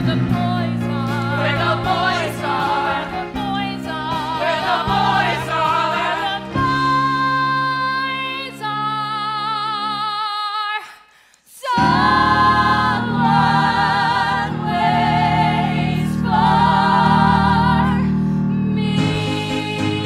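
A group of women singing into microphones together with a live band. The music drops to near silence for about a second just past the middle, then returns with long held notes sung with vibrato.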